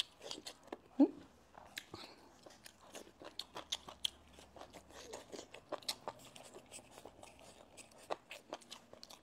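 Close-miked chewing of crunchy stir-fried velvet antler mushrooms: a run of irregular crisp crunches, two or three a second, with a short hum from the eater about a second in.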